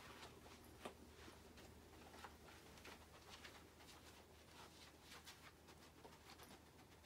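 Near silence: quiet room tone with faint scattered ticks, a slightly sharper one about a second in.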